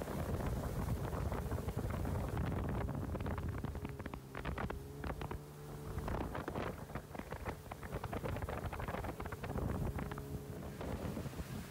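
Motorboat engine running steadily at speed across the water, with wind buffeting the microphone in crackly gusts.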